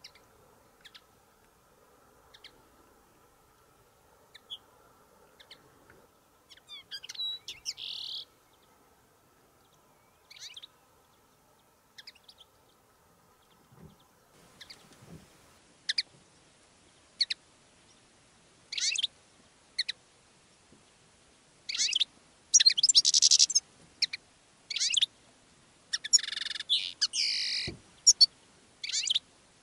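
European goldfinches and common linnets calling: scattered short high chirps at first, then from about halfway through louder, quicker calls and bursts of twittering song.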